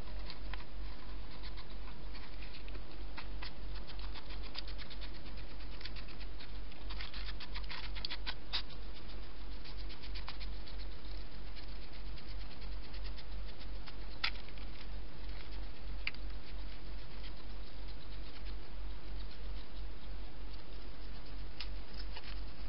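Wild hedgehog eating at a food dish: quick clicky chewing and pattering, densest about seven to nine seconds in, then a few single clicks, over a steady low hum.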